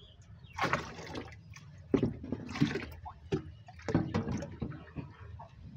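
Water from another tank being poured and splashed into a fish tank, in several uneven surges.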